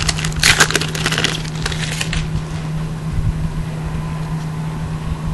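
Foil wrapper of a 2011 Panini Prestige football card pack crinkling and tearing as it is opened, for about the first two seconds, then stopping over a steady low hum.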